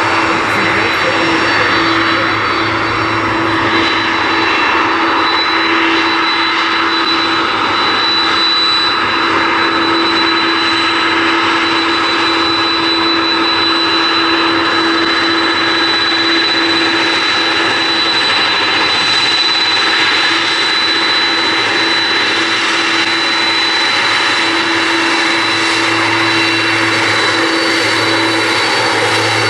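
Boeing 767 twin jet engines running at taxi power: a steady jet whine with a high whistling tone that holds even throughout.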